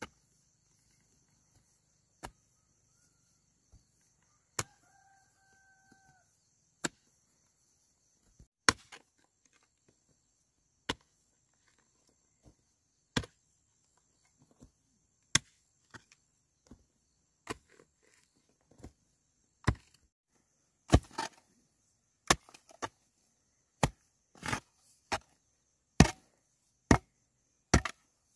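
Sharp chopping strikes, spaced about two seconds apart at first and coming about once a second near the end. A short animal call, like a bird, sounds once about five seconds in.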